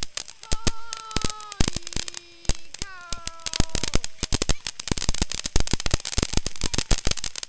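Ground fountain firework spraying sparks, crackling with a rapid, irregular stream of sharp snaps. Two falling tones sound over the crackle in the first half.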